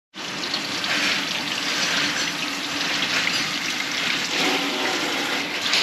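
Water running steadily from a faucet supplied by a mini tank electric water heater, with the hot water just starting to come through.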